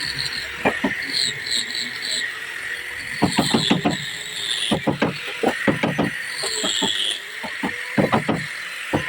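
Hammering on wood: runs of quick strikes, several to a run, coming in three or four bursts, over a steady high chirping of insects.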